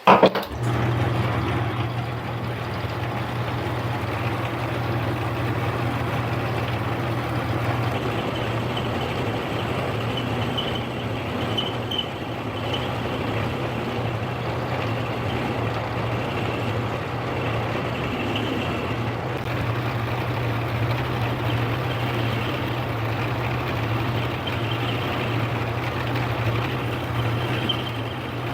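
Metal lathe running steadily with a low motor hum while a 45-degree chamfer is turned on the end of a drill-press spindle rod.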